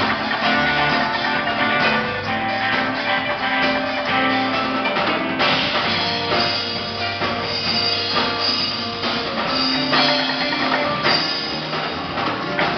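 Live band playing, with guitar and drum kit.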